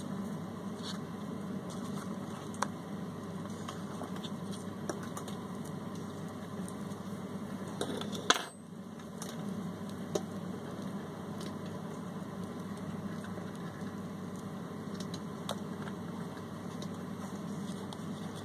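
Small scattered clicks and taps of a clear plastic tub and the rose chafer beetles in it being handled, with one sharper click about eight seconds in, over a steady low hum.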